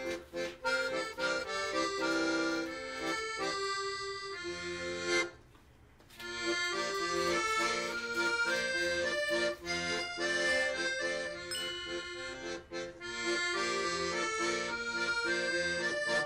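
Instrumental background music with a steady melody that breaks off for about a second around five seconds in.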